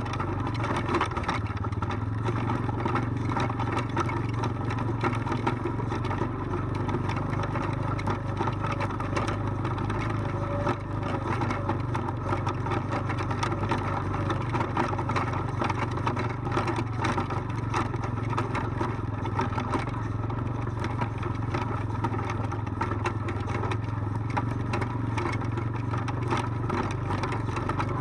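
ATV engine running steadily at low speed down a rocky trail, with frequent short knocks and clatter as the machine rolls over loose rocks.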